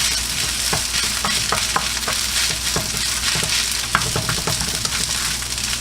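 Rice sizzling as it is stir-fried in oil and garlic in a pan, with a steady hiss and irregular clicks and scrapes of a utensil against the pan as it is stirred.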